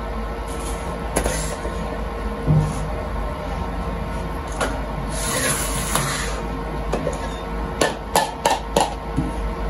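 Metal kitchenware being handled and set down on a counter: a steel colander and pot give scattered clinks, a short rustle about halfway through, then a quick run of four or five sharp knocks near the end.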